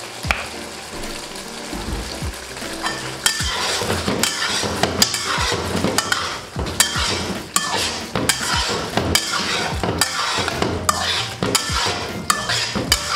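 A metal spatula scraping and knocking against a wok while beef and potatoes are stir-fried in sizzling oil, with quick repeated strokes from about three seconds in. This is the final toss after finishing oil goes in and the sauce has reduced thick.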